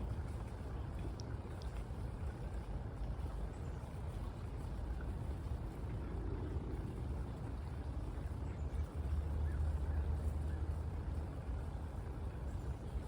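Steady low rumbling background noise outdoors, swelling louder for a few seconds about nine seconds in, with a couple of faint high chirps near the start.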